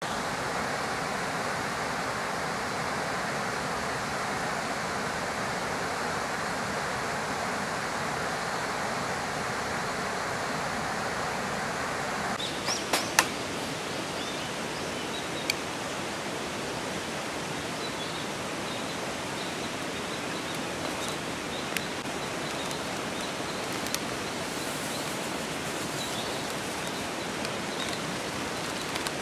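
Steady rushing water noise. About halfway through the sound shifts, and a few sharp ticks and taps stand out from it.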